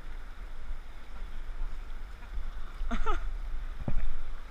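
River water washing around a sit-on-top kayak's hull, over a steady low rumble. A short voice sound comes about three seconds in, and a single thump near the end is the loudest moment.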